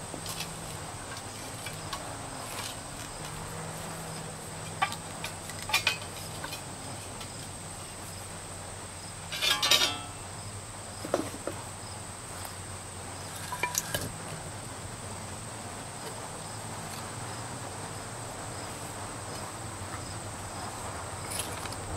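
Crickets trilling steadily and high-pitched throughout. Over them come a few short knocks and, about ten seconds in, a brief louder scrape as the granite upper piece of the monument is shifted and seated on its base.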